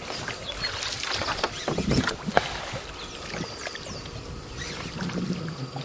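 Small boat on the water: a steady wash of water noise with scattered, irregular light knocks against the hull.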